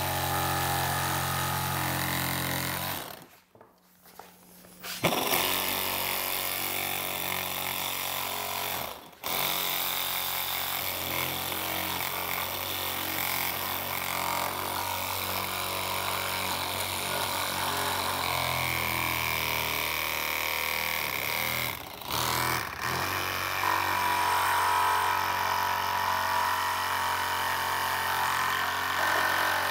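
Cordless one-handed reciprocating saw cutting through a plastic motorcycle saddlebag lid, its blade guided along a cutting template. The saw runs steadily, stops for about two seconds about three seconds in, and pauses briefly twice more, around nine seconds and just past twenty seconds.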